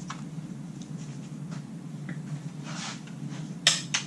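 Two sharp knocks near the end as hands grab the handle of a gas-powered reciprocating saw resting on a wooden workbench, over a steady low hum; the saw's engine is not running.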